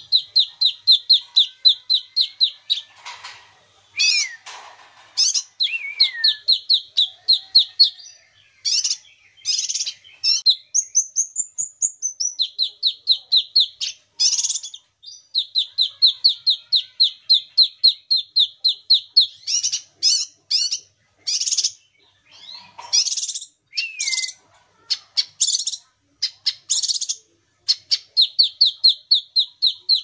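A caged kinoi songbird singing: long fast trills of short repeated high notes, interrupted by louder harsh chattering notes and, about ten seconds in, a whistle that rises and falls.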